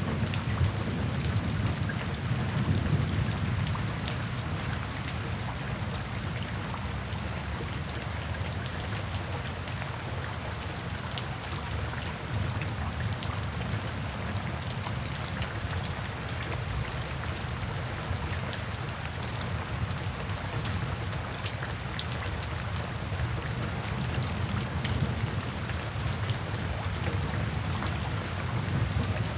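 Steady rain falling, individual drops heard as fine ticks, over a low, distant thunder rumble that is strongest in the first few seconds and then eases to a steady background.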